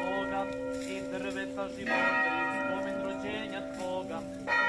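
Church bell ringing, struck about two seconds in and again near the end, each stroke ringing on and overlapping the last.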